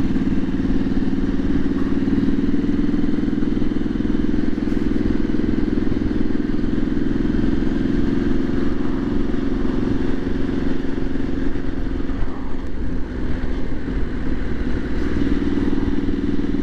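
Triumph SS 900 motorcycle engine running steadily at road speed, heard from the rider's seat. It eases off about twelve seconds in and picks up again near the end.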